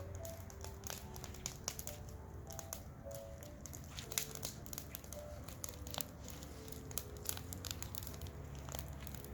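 Wood fire crackling, with frequent sharp, irregular pops over a low steady rumble.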